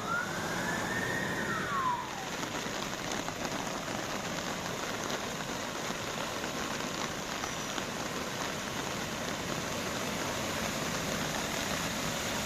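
Heavy rain falling in a steady hiss during a downpour. A single tone rises and falls in pitch once in the first two seconds.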